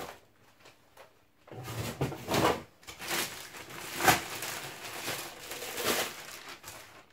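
Thin plastic bag rustling and crinkling in irregular bursts as a metal-cased NVR unit is pulled out of it and handled. It starts about a second and a half in, and the loudest burst comes about four seconds in.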